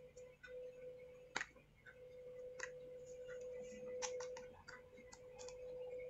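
Faint, scattered clicks and taps as fingers and a small tool work at the LVDS display-cable connector on a MacBook Air logic board, over a faint steady hum.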